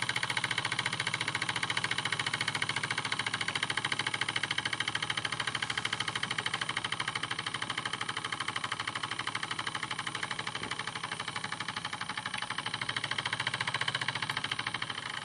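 RETROL SE-02 model horizontal steam engine running steadily with a fast, even beat, driving its small generator.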